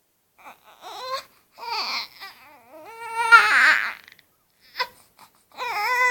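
Baby fussing and crying: a few short whimpering cries that build to a longer, louder cry a little past halfway, then another cry starting near the end.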